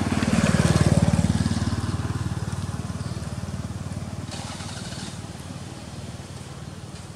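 A small engine running with a fast, even pulse, loudest about a second in and then slowly fading away.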